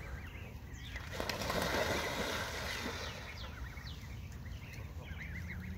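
Canada geese splashing into the shallows, a noisy rush of water lasting about two seconds starting about a second in, with goslings' short high peeps around it.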